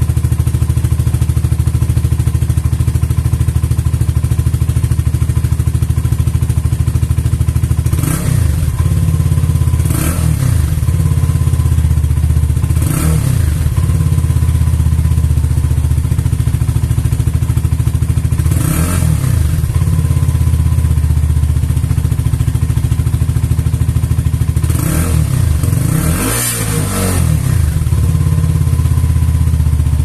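A stock FKM 3GP 300cc single-cylinder sport bike idling steadily through its underbelly exhaust, revved in about six short throttle blips that rise and fall back to idle, two of them close together near the end. The exhaust note is bassy, with a hiss at the tail of each blip.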